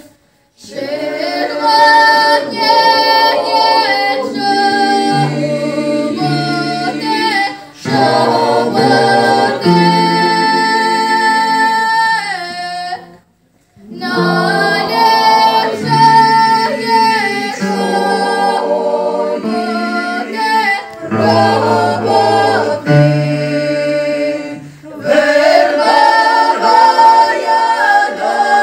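Mixed choir of women's and men's voices singing a cappella in several parts, in phrases with held notes. The singing stops for a moment right at the start and again about halfway through.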